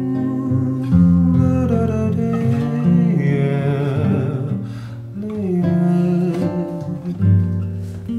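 Acoustic guitar playing a song's instrumental passage, with wordless singing drifting over it.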